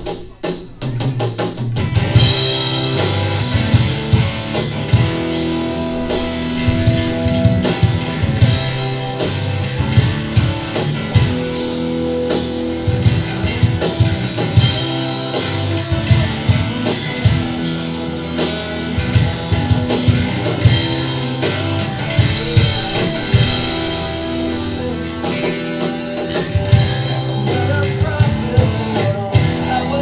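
Live rock band playing, with two electric guitars over a drum kit; the full band comes in about two seconds in, after opening drum hits.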